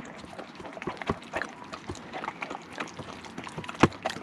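A dog eating soft grilled salmon off a cutting board: wet chewing and lip-smacking in quick, irregular clicks, with one sharper knock near the end.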